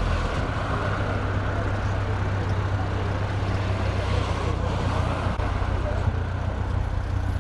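Classic Mini's four-cylinder engine idling steadily, with street traffic and faint voices around it.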